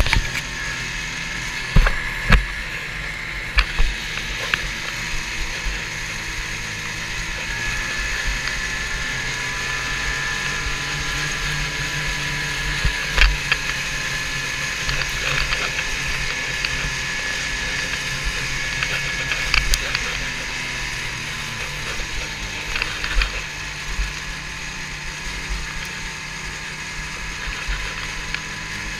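Snowmobile engine running steadily while riding along a trail, with occasional short sharp knocks.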